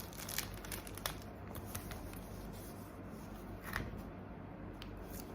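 Small plastic packaging and a toy being handled: faint rustling with a few light clicks, and one sharper click about four seconds in.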